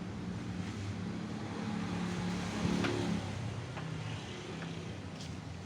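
A salvaged refrigerator compressor running with a steady low hum as it pumps air into a balloon.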